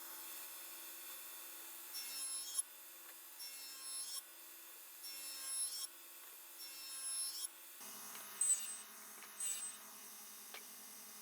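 A hand tool worked over wood in four even strokes of under a second each, followed by two shorter strokes, with a rasping, shaving sound.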